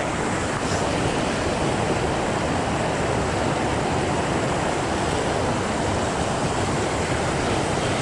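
Stream water rushing steadily over boulders in a small cascade close by.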